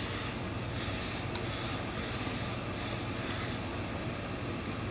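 Industrial steam iron with an overhead hose pressing suit trousers: two bursts of steam hiss, each about a second long, with the iron rubbing over the cloth. A steady low hum runs underneath.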